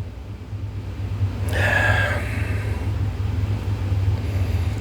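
Steady low room rumble. A soft breathy rush of air noise starts about a second and a half in and fades after about three seconds.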